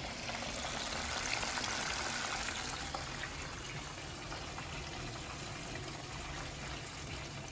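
Cooking oil sizzling in a pot on the stove: a steady fizzing hiss with faint scattered crackles.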